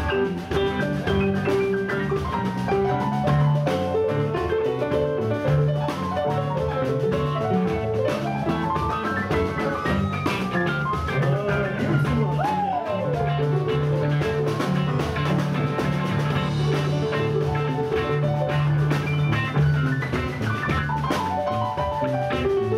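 Live blues band playing, with drum kit, bass, electric guitar and keyboards; a bending melody line rises and falls about ten seconds in.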